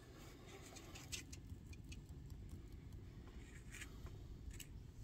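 Near silence: a low room hum with a few faint, short clicks and taps from small objects being handled.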